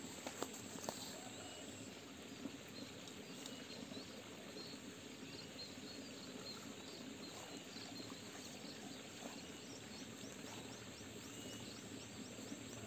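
Faint rural outdoor ambience: a small bird chirping every second or two and an insect's rapid, even ticking trill for a few seconds in the second half, over a steady low hiss.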